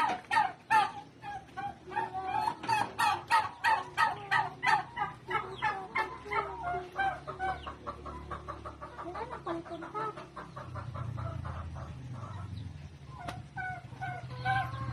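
Chickens clucking in a fast, steady run of short calls that thins out about two-thirds of the way through, with a low rumble in the last few seconds.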